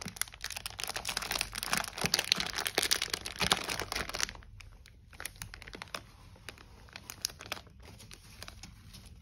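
Clear plastic packaging bag crinkling under the hands, densely for about the first four seconds as it is handled and pressed flat, then in fainter, scattered crinkles.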